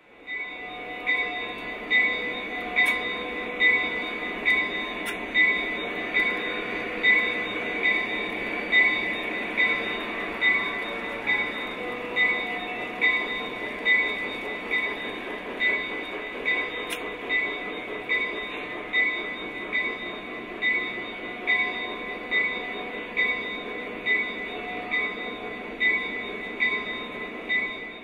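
O gauge model freight train running along its track, a steady running noise with a regular click a little under once a second.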